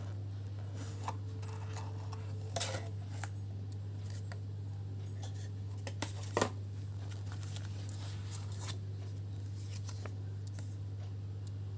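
Rustling and clicking of an unboxing: a product package and its plastic being handled, with a few sharper snaps about two and a half and six and a half seconds in. A steady low hum runs underneath.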